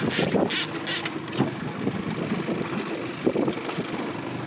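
Fishing boat's motor running with wind buffeting the microphone, and a few short, sharp noises in the first second.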